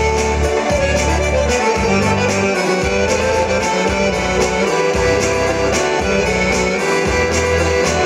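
Instrumental interlude of a folk-song backing track played through a small speaker set: a melody line over bass and a steady beat, with no singing.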